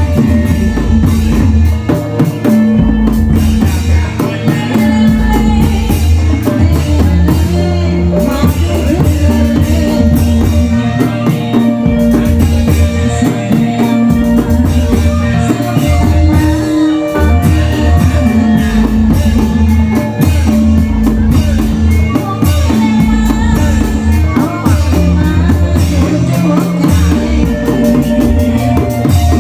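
Loud, continuous music from a reog Indramayu troupe, with drums and percussion over a bass line that steps from note to note.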